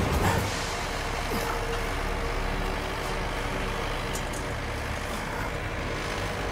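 Tractor engine running steadily with a low hum.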